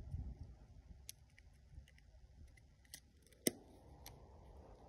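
The back door of a Nikon 35 mm film SLR snapping shut with one sharp click about three and a half seconds in, after a few fainter clicks of the door and camera body being handled.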